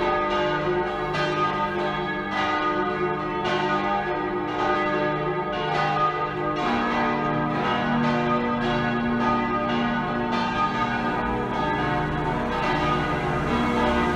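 Full peal of six swinging church bells tuned G♯, B, D♯, F♯, G♯ and E. Their strokes overlap in a steady, irregular stream, each ringing on long after it is struck.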